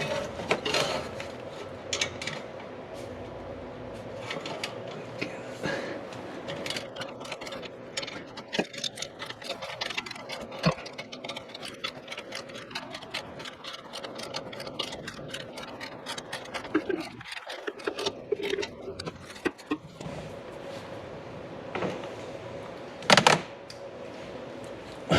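Hand tools and metal exhaust hardware clicking and clinking irregularly as an axle-back muffler is fitted under a car. A sharp metal knock comes about 23 seconds in, with a faint steady hum underneath.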